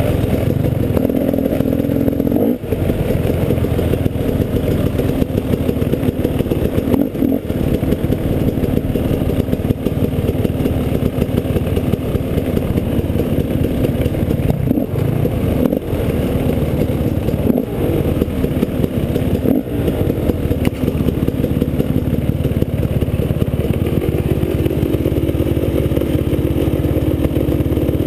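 Off-road enduro motorcycle engine running as the bike is ridden, its pitch rising and falling with the throttle and with brief dips now and then.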